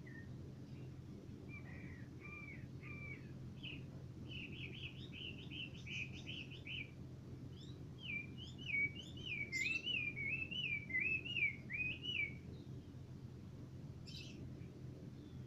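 Caged songbird singing: a run of quick, repeated whistled phrases that starts softly, grows louder in the second half and stops about twelve seconds in, followed by a short high call.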